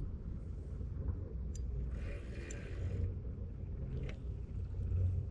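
Steady low rumble of wind and handling noise on the microphone, with a short hiss about two seconds in and two light clicks.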